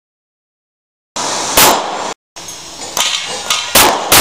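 Pistol shots fired at a steel-framed pop-up target. There is a single shot after about a second of silence, then lighter knocks and two more shots in quick succession near the end.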